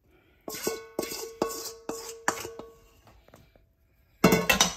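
A spoon tapped about six times against the rim of a stainless steel mixing bowl to knock out the last of the bread pudding mixture, the bowl ringing after each tap. A quick run of louder clattering knocks follows near the end.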